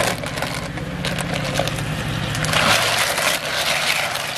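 Blood cockles being scrubbed by hand in a plastic basin of water: shells clattering and grinding against each other with sloshing, kneaded with both hands like rinsing rice to get the mud off. A steady low hum underneath stops about two-thirds of the way through.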